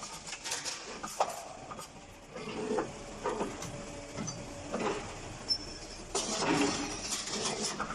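CNC flat bar bending machine working steel strip: irregular clicks and metallic knocks, with a louder stretch of hissing machine noise near the end.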